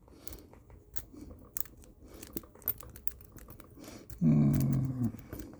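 Metal rake pick rocking in a pin-tumbler lock under a tensioner, making quick irregular clicks and scrapes against the pins. About four seconds in, a short murmured voice sound.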